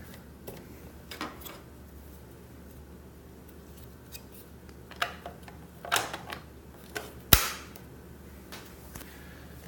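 iLife A4 robot vacuum: irregular plastic clicks and knocks, with one sharp knock about seven seconds in, over a faint low steady hum.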